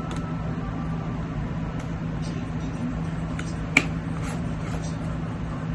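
Steady low hum of a small motor, with one sharp click about two-thirds of the way through.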